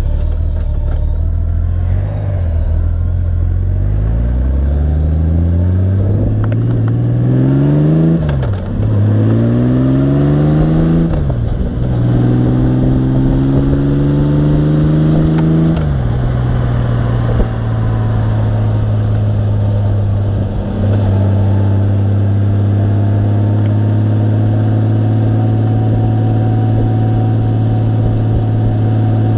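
Honda Gold Wing motorcycle engine pulling away and accelerating, its pitch climbing in three runs with a sharp drop at each upshift, then settling into a steady cruise for the second half.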